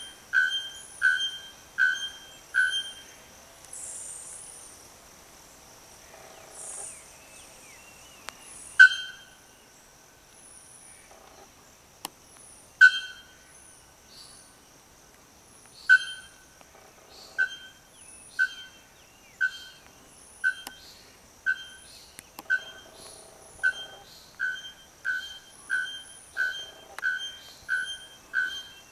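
Male bare-throated bellbird (Procnias nudicollis) calling: loud, short notes repeated in series. A quick run of about five comes at the start, then a few single notes, then a long series from about halfway that speeds up to nearly two notes a second near the end.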